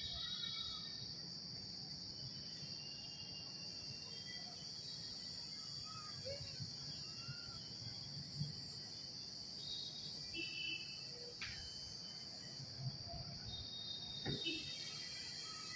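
Insects in a steady high-pitched chorus, with scattered short chirps over it and a couple of soft knocks in the second half.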